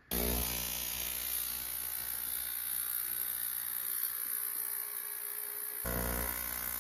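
Lifebasis ultrasonic cleaner switching on and running a cleaning cycle on a water-filled tank: a steady electric buzz with a high-pitched hiss, starting abruptly as the start button is pressed.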